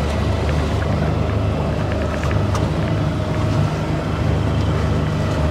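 A small engine on a boat running steadily: a constant low hum with no change in speed.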